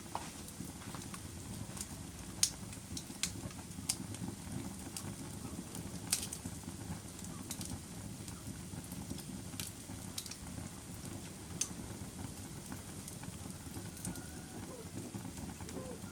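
Wood fire burning in a fireplace: a steady low rumble of flames with scattered sharp crackles and pops, the strongest about two and a half and six seconds in.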